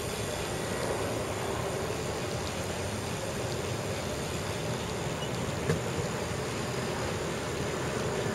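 Steady rushing of wind on the microphone and road noise while riding a bicycle across a bridge, with a single sharp click about five and a half seconds in.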